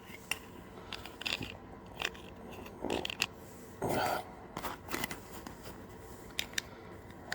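Hard plastic model-kit parts being handled and set in place without glue: scattered light clicks and scrapes, with a couple of short, duller rustles about three and four seconds in.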